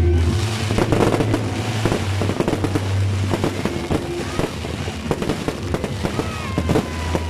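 Aerial fireworks going off: many bangs and crackles in quick, irregular succession.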